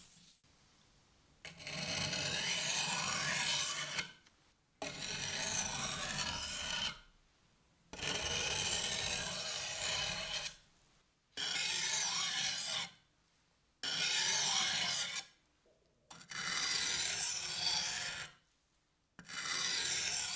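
Steel knife blade drawn across a wet whetstone to sharpen the edge, in seven slow scraping strokes of about two seconds each with short pauses between them.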